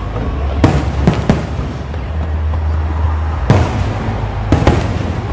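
Fireworks exploding: about six sharp bangs in uneven clusters, two close together about a second in, one alone past the middle, and a quick pair near the end, over a steady low rumble.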